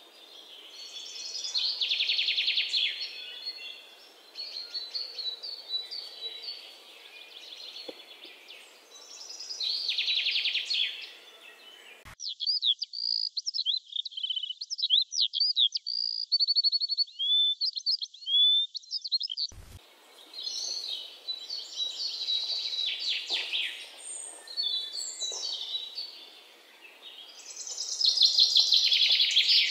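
Red-whiskered bulbul nestlings calling from the nest: harsh, buzzy begging calls in bursts of a second or two, several times over. In the middle comes a run of quick, clear high chirps.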